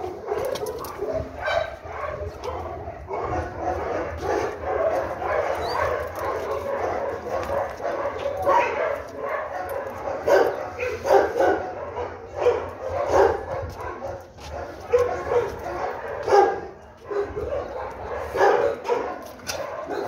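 A dog barking over and over in short calls one after another, with the loudest calls in the second half.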